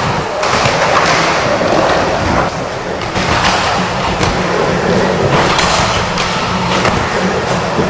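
Skateboard rolling around a bowl, a continuous wheel rumble broken by several sharp clacks as the board's trucks and wheels hit and scrape the coping.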